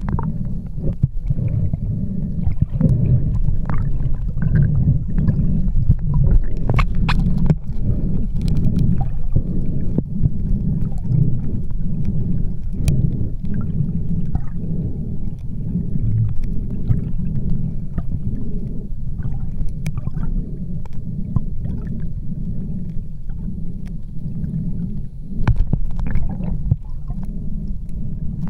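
Sound recorded underwater through a camera's waterproof housing: a steady muffled low rumble of water moving around the camera, with scattered faint clicks and taps.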